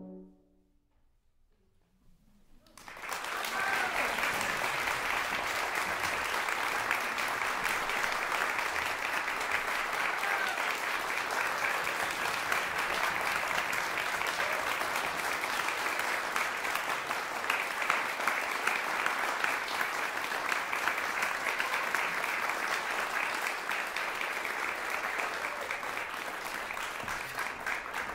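The last held chord of a horn ensemble stops at the very start, and after about two seconds of hush a concert audience applauds. The applause starts suddenly about three seconds in and stays steady, marking the end of a piece.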